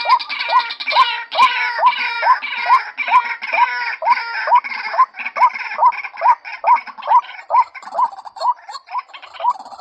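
Female white-breasted waterhen calling a short, rising note over and over, about three a second. A harsher, higher chatter runs over it and fades out about halfway through.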